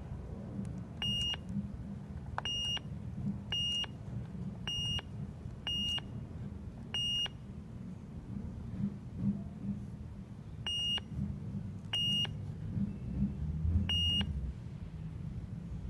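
Keypad of a 1980 LJN Computer Command Corvette programmable toy car beeping as keys are pressed to enter commands. There are nine short high beeps: six about a second apart, then, after a pause of a few seconds, three more. A low rumble runs underneath.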